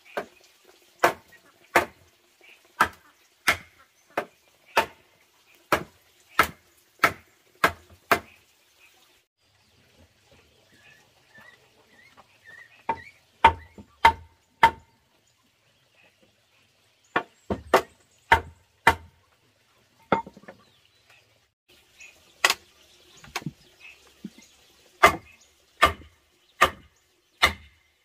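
Mallet blows on a wooden table frame, knocking the rails' mortise-and-tenon joints home into the legs: sharp wooden knocks about one a second, in runs with short pauses between.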